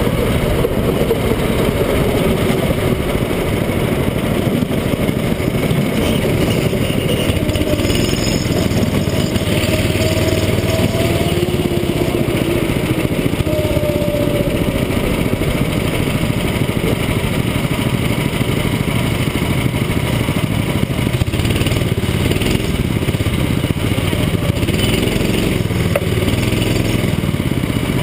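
Go-kart engine running close to the microphone, its pitch rising and falling a little as the throttle changes.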